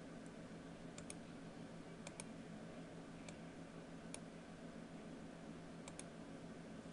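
Faint computer mouse clicks while working a software interface: a handful of sharp clicks, some in quick pairs, spread over the few seconds, over a steady low electrical hum.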